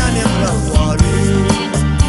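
Burmese pop song played by a band: a steady drum beat over a sustained bass line, with a voice singing the melody.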